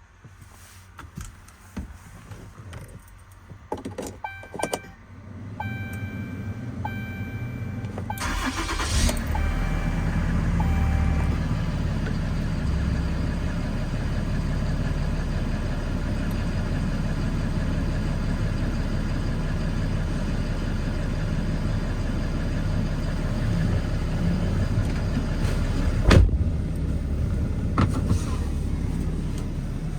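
Cold start of a 6.7 L Cummins diesel: a few clicks and repeated beeping tones, then the engine cranks and fires about eight seconds in and settles into a steady idle. A sharp knock comes near the end.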